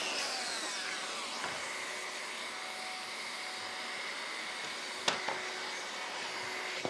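Plunge track saw winding down after a cut, its whine falling away over about a second and a half, while the dust extractor hooked to it keeps running steadily. A single sharp knock comes about five seconds in.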